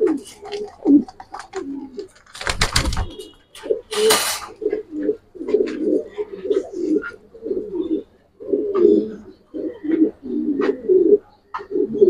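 Caged racing pigeons cooing over and over in low, rolling calls. A couple of brief rustling, knocking noises sound about two and a half and four seconds in.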